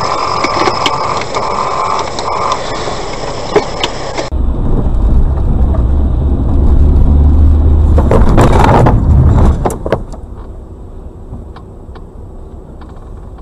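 Car driving noise picked up by a dashcam inside the cabin. About four seconds in it turns into a heavy low rumble, with a short, louder burst of noise around eight to nine seconds, then it quietens.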